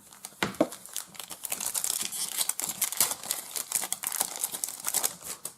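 Crinkling of a plastic trading-card pack wrapper as it is torn open and handled: a dense run of rapid crackles and clicks.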